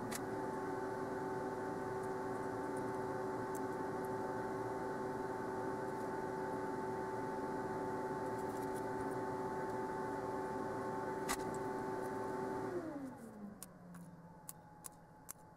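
Fume extractor fan running with a steady hum, switched off about thirteen seconds in, its pitch falling as it winds down. A few light clicks follow near the end.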